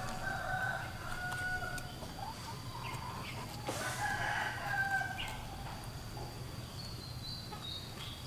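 A rooster crowing twice, at the start and again about four seconds in, over soft knocks of a knife cutting pineapple on a wooden chopping board.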